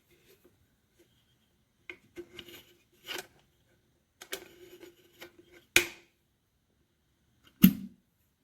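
A stainless steel electric kettle being handled: a string of separate clicks and knocks, some with a short metallic ring, the loudest a sharp knock near the end.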